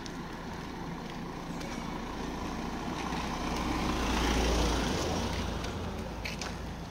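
A van driving past at close range: its engine and tyre noise swell to a peak about four and a half seconds in, then fade.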